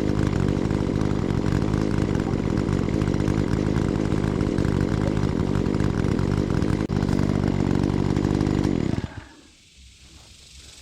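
Two-stroke chainsaw running at a steady speed, then shutting off abruptly about nine seconds in. Faint rustling follows.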